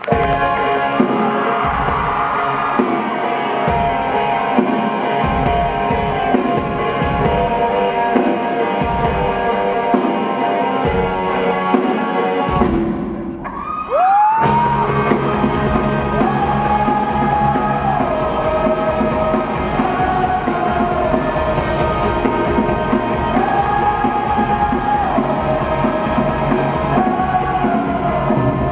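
Live rock band playing, with drum kit and guitars. Just under halfway through, the sound thins out for a moment before the full band comes back in with long, gliding melody notes.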